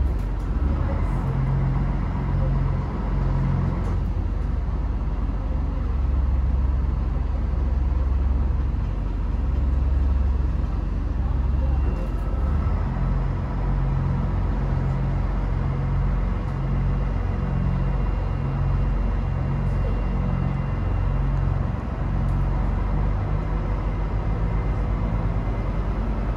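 Diesel railcar's underfloor engine running with a low rumble as the train pulls out of the station, heard from inside the passenger cabin.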